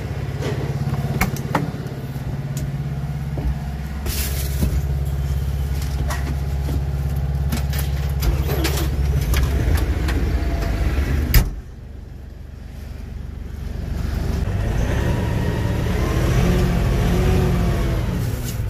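LS XU6150 tractor's diesel engine running at idle, with a few knocks as the cab is entered. About eleven seconds in the cab door shuts with a sharp bang and the engine goes quieter and muffled, then its speed rises and falls near the end.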